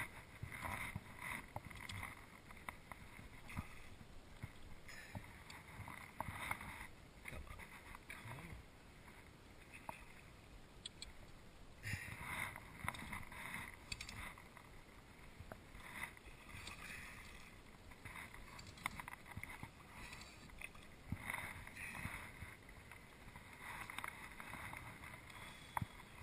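Faint water sloshing and lapping close by, coming in irregular swells every few seconds, with soft rustles from fly line being stripped in by hand.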